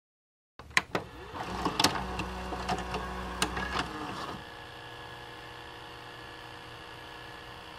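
A VCR loading a tape: several clicks and a motor whirring for about four seconds, then a steady hum with hiss once playback starts.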